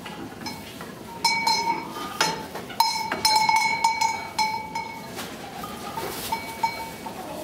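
Sheep bells clanking irregularly as the flock shifts in its pen, with a dense run of strikes from about one to five seconds in.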